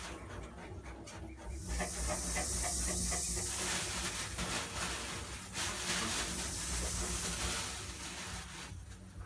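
Porcupine rattling its raised quills: a hissy rustle that swells for about two seconds, then comes back in two shorter bursts later on.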